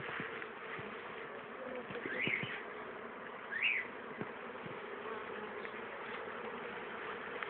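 Many honeybees buzzing steadily in a steady hum, the sound of a colony disturbed as its combs are cut out. Two short high chirps stand out about two and three and a half seconds in.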